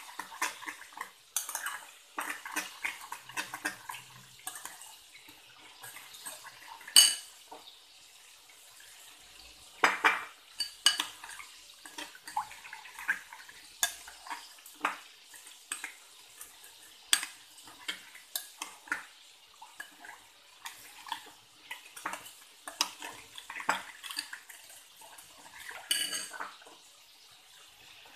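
Metal spoon clinking and scraping against a glass bowl while stirring a wet chilli spice paste, in irregular taps with the loudest clinks about seven and ten seconds in.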